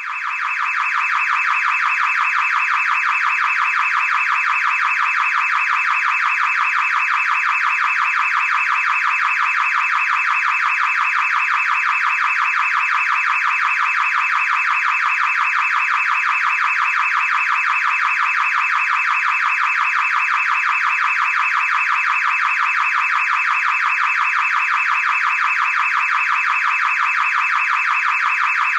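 Car alarm sounding without a break: a loud, shrill electronic tone with a fast flutter, holding the same pitch and level throughout.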